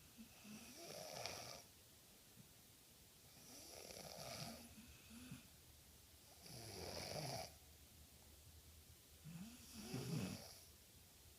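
A sleeping boy and dog snoring on a sofa: four long snores about three seconds apart.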